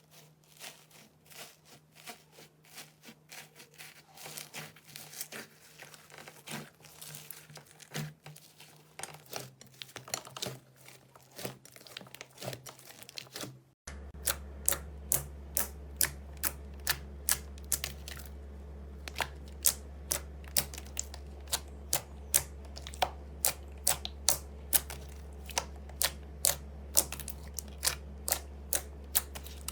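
Slime being pressed and worked in the hands, making irregular crackling and clicking pops. About halfway through it cuts to another clip with a steady low hum under sharp pops that come roughly twice a second.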